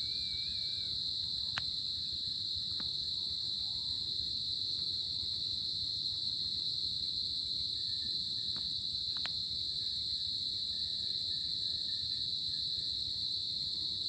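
Chorus of crickets at night: a steady, unbroken high-pitched trill. A few faint clicks come through it.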